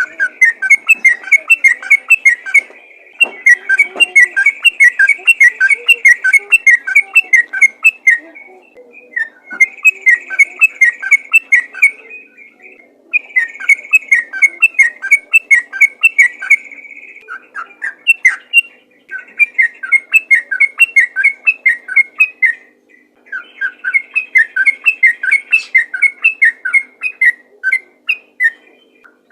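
Yellow-vented bulbul (trucukan) singing a rapid-fire song: long runs of quick bubbling notes, about five a second, in phrases a few seconds long broken by short pauses.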